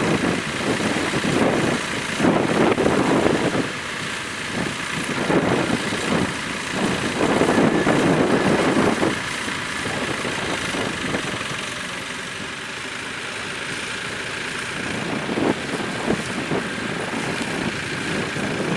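A tractor engine running, swelling and fading in loudness.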